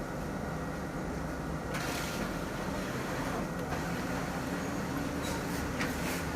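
Printing machine running with a steady mechanical hum, a higher hiss joining in about two seconds in, and a few light clicks near the end.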